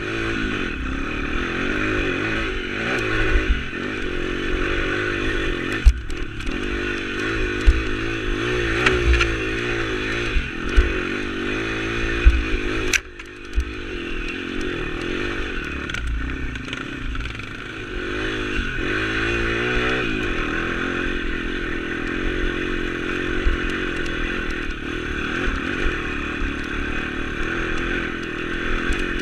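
A YX 140 pit bike's single-cylinder four-stroke engine running under load, its revs rising and falling repeatedly as it climbs a rough, rocky trail, with a few sharp knocks from the bike over the bumps. The engine drops off briefly about halfway through, then pulls again.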